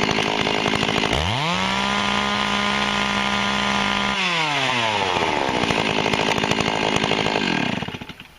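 Stihl 064 two-stroke chainsaw working in a cut, then about a second in rising to a high, steady wide-open rev for about three seconds. The throttle is then let off and the engine winds down in pitch and falls away near the end.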